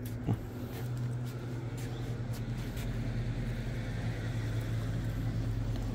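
A motor vehicle's engine running with a steady, low, even hum that grows a little fuller about halfway through. There is a short light click near the start.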